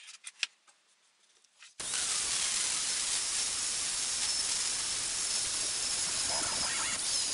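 Angle grinder's abrasive disc grinding into a rusty steel wrench, a loud, steady, high-pitched grinding noise that starts abruptly about two seconds in, after a few faint taps.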